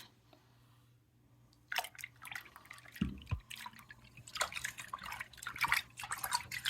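Water splashing and dripping in a sink as a squishy toy is rinsed off, in irregular spatters that start about a second and a half in, with a dull bump about three seconds in.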